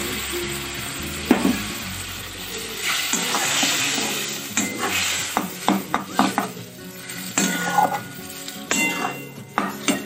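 Boiled red lentils (masoor dal) sizzling in hot mustard oil in a metal karahi, while a metal spatula scrapes and knocks against the pan as they are stirred. The sizzle is strongest for the first few seconds and then dies down. Through the second half the scrapes come as a string of sharp clicks.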